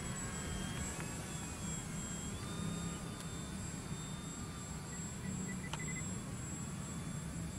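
Foam RC model plane's motor and propeller whining in flight, faint and distant, its pitch sliding down and then rising again as the throttle and distance change.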